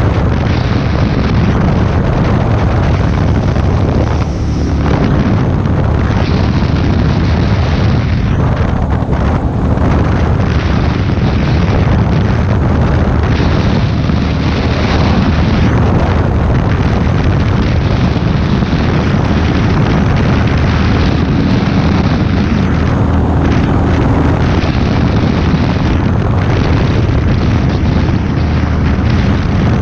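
Heavy wind buffeting on the microphone of a motorcycle rider at road speed, with the motorcycle's engine running underneath.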